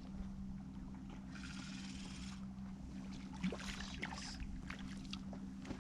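Boat motor running steadily at low speed with a constant low hum. About a second and a half in there is a short rush of noise, and a few light clicks come a little after the middle.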